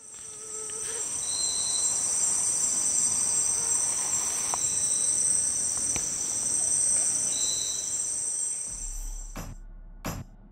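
Steady high-pitched drone of rainforest insects that fades in at the start and fades out near the end. A brief higher note sounds twice over it, and there are a couple of soft knocks near the end.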